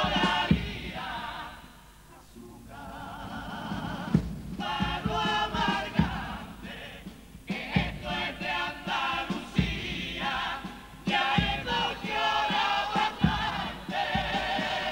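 A Cádiz carnival comparsa chorus singing in close harmony, with guitar accompaniment and low drum thumps every second or two. The singing drops away briefly about two seconds in, then carries on.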